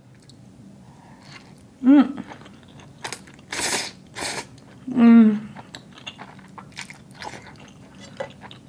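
A person eating spaghetti: two slurps of noodles midway, with soft chewing and small wet mouth clicks throughout. Short hummed 'mm' sounds of enjoyment come about two seconds in and again about five seconds in.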